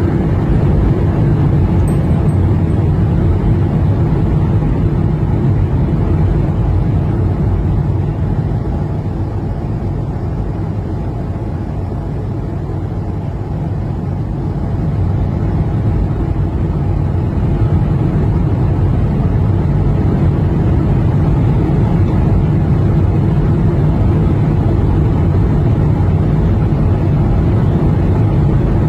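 Steady low drone of an airliner in flight, heard from inside the passenger cabin: engine and airflow noise with no breaks.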